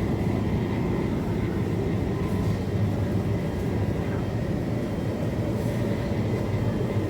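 Steady low rumble and hum of a supermarket's background noise, with a faint steady tone above it.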